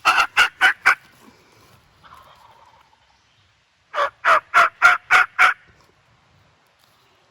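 Turkey yelping: two runs of evenly spaced yelps, four at the start and seven about four seconds in, roughly three a second.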